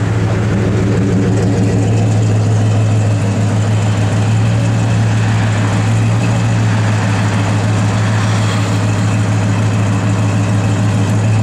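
1971 Pontiac LeMans Sport's 400 cubic-inch V8 idling steadily through its dual exhaust, a deep even hum that holds at one pitch.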